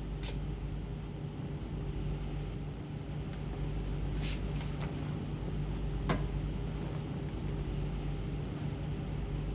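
A steady, low mechanical engine drone, with a few short clicks in a cluster about four seconds in and a sharper click about six seconds in.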